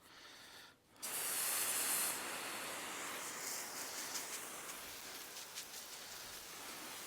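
Water spraying onto a compost pile to wet it down: a hiss that starts suddenly about a second in, is loudest for the first second, then runs on steadily.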